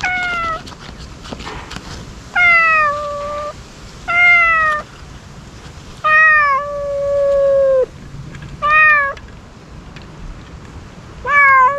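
Stray cat meowing repeatedly for food, about six calls. Some are short and some long and drawn out, each sliding a little down in pitch.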